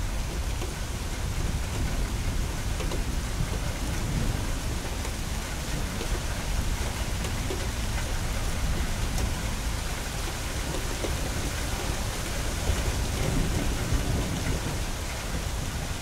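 Rain falling steadily on hard surfaces, with scattered close drops ticking, and low rumbles of thunder swelling about four seconds in and again near the end.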